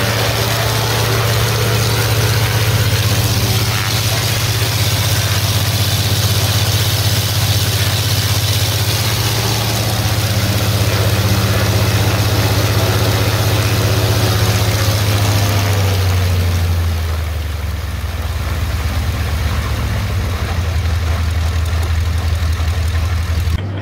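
Small radial engine of a P-36 Hawk scale replica aircraft running steadily with the propeller turning. About two-thirds of the way through, its pitch drops and it settles to a slower, quieter idle.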